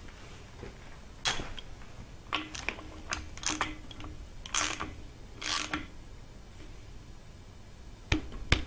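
Hand ratchet wrench clicking in short strokes while a fitting is tightened into an aluminium engine block. A couple of sharp metal clicks come near the end.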